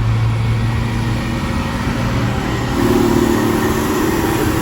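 A motor vehicle running, a steady low engine hum, with a higher steady engine note joining about three seconds in.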